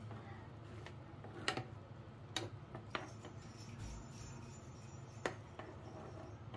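Metal spoon stirring thick carbonara sauce in a frying pan, with a few sharp clinks of the spoon against the pan, the loudest about a second and a half in.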